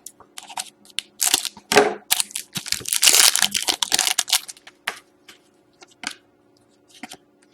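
Foil wrapper of a Panini Select hockey card pack being torn and crinkled, in loud rustling bursts through the first five seconds, then a few light clicks.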